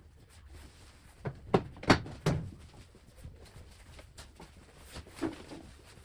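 A quick run of four sharp knocks and clunks about a second and a half in, then one softer knock near the end.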